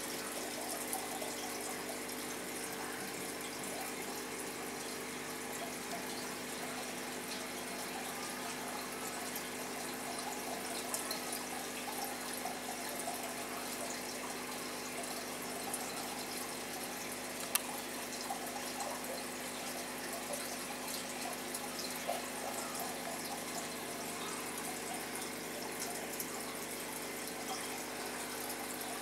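Aquarium water circulating: a steady trickle and bubbling over a steady low hum from the tank's pump, with scattered faint ticks and one sharp click about 17 seconds in.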